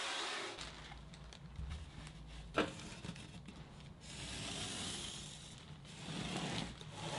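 Hand-sanding of a foam paddleboard blank for a moment, then a pencil scraping along the edge of a wooden block on the foam. There is one sharp knock about two and a half seconds in, followed by more rubbing and scraping.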